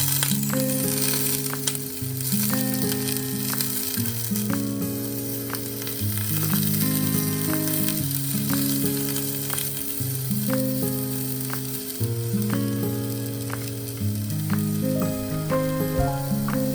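Food sizzling in a hot frying pan, with a steady crackling hiss that starts at once, under soft background music of held chords.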